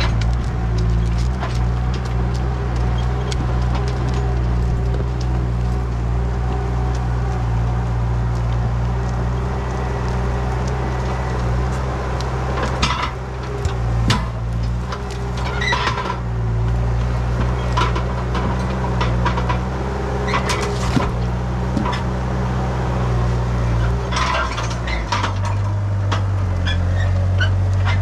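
ASV compact track loader's diesel engine running steadily under work, with scattered knocks and clunks as logs are handled; its engine note shifts about three seconds before the end.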